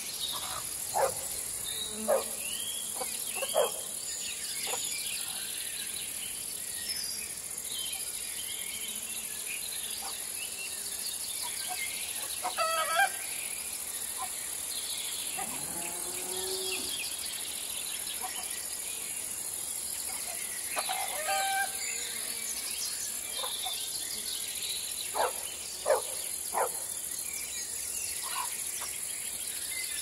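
Insects chirring in a steady high-pitched drone, with scattered short bird and animal calls now and then.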